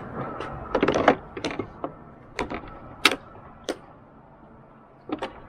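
A Pulaski's wooden handle and steel head knocking and clicking as it is seated into brackets on a metal compartment door: a quick clatter about a second in, then single clicks spread out after it.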